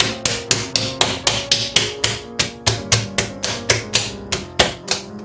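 Hands slapping a ball of freshly kneaded yeast dough, about four quick, even slaps a second, over background music.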